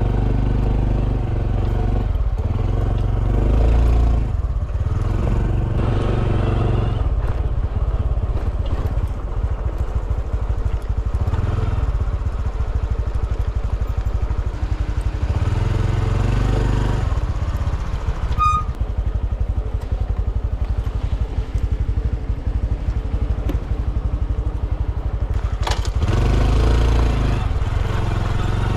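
Honda CT125 Hunter Cub's air-cooled single-cylinder engine running on the move, its note rising and falling several times as the rider speeds up and eases off.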